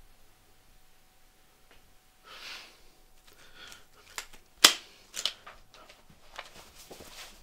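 Small clicks and rustles of objects handled by hand on a bedside table: a soft rustle about two seconds in, then a run of sharp clicks, the loudest about halfway through.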